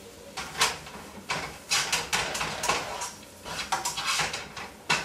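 A spatula scraping and knocking against a frying pan as onions and shredded carrots are stirred while they sauté. The strokes come irregularly, two or three a second.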